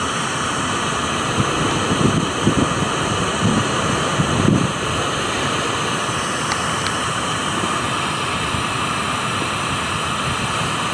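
Steady white-noise hiss played through a smartphone's speaker by a ghost-box (spirit radio) app, with a few short faint blips about two to four and a half seconds in.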